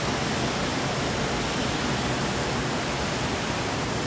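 Waterfall at Amnicon Falls rushing steadily: an even, unbroken noise of falling water.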